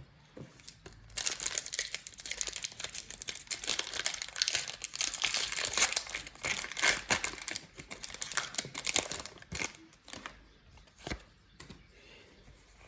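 Foil wrapper of a Pokémon trading-card booster pack crinkling and tearing as it is opened, a dense crackling that starts about a second in and stops after about nine seconds. A few light clicks follow near the end.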